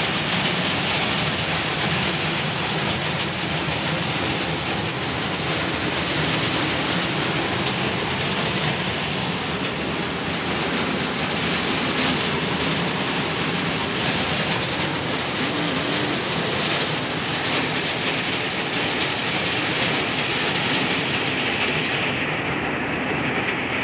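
Heavy rain falling on a truck's cab roof and windscreen, heard from inside the cab as a steady, even hiss.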